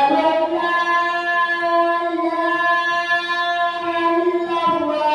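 Singing voice holding one long steady note for most of the time, moving to a new note near the end.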